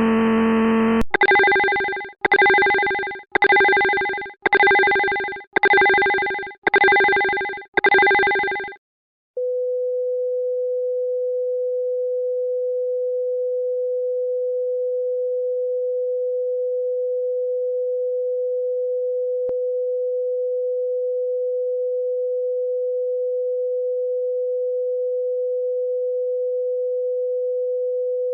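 EAS-style emergency alert tones: seven chime-like electronic tones about a second apart, each fading away. After a short gap comes a single steady tone that holds without change.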